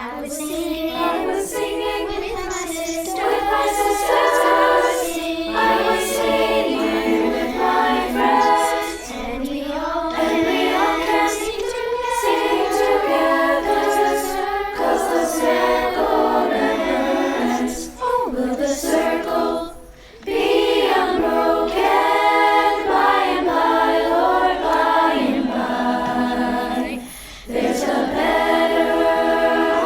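Girls' choir singing in multi-part harmony, starting right at the opening, with short breaks between phrases about two-thirds through and again near the end.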